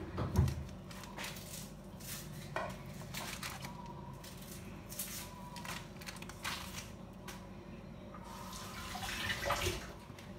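Kitchen knife pressing down through slabs of coconut barfi, with scattered scrapes and clicks as the blade meets the parchment paper and wooden cutting board beneath. There is a sharp knock about half a second in, and a longer stretch of scraping and rustling near the end.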